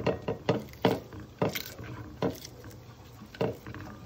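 Irregular light knocks and taps, about seven of them, as browned chicken thighs are handled and shifted in a metal pan.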